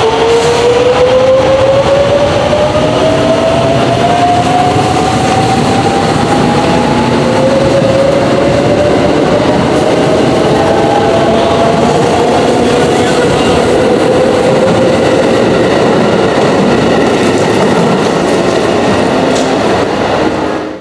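A 681 series electric limited express train pulling out and accelerating. Its traction motor whine rises slowly and steadily in pitch over the steady rolling noise of the train.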